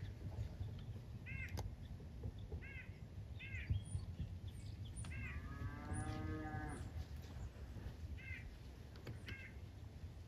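Outdoor bird calls repeated in short groups. About six seconds in comes one longer, drawn-out animal call lasting over a second, over a steady low rumble.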